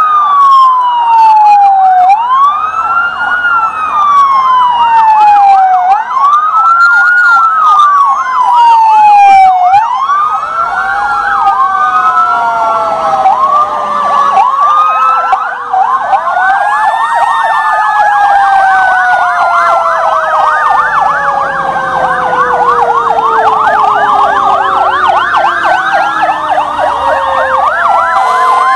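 Loud fire apparatus sirens. At first a single wail rises and falls about every four seconds. From about ten seconds in, more sirens join and overlap, including a fast yelp and a long tone that slowly winds down in pitch.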